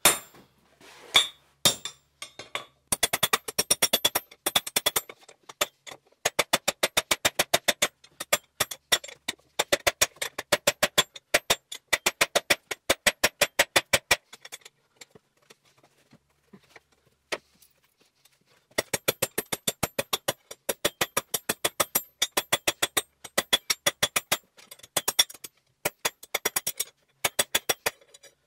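Hand hammer striking a steel rod on a steel anvil in quick runs of ringing blows, about four or five a second, bending the rod into a hook. A few seconds past the middle the blows thin out to a few single strikes before another steady run.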